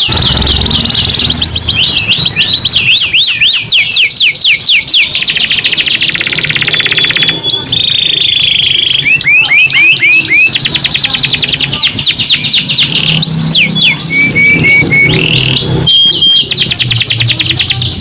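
Domestic canary song: fast runs of repeated chirps and long rolling trills, broken by a few held whistled notes.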